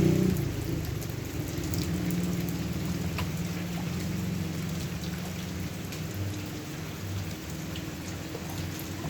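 Rain falling steadily, with scattered sharp ticks of single drops, over a low steady hum.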